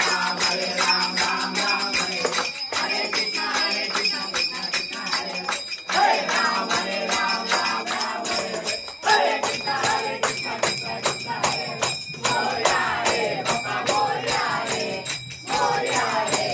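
Music with singing over a fast, steady beat of jingling bell-like percussion.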